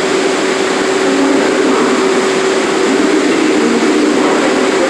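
Subway train standing in a station with its doors open: a steady hum from the idling car, a constant hiss with one steady humming note running under it.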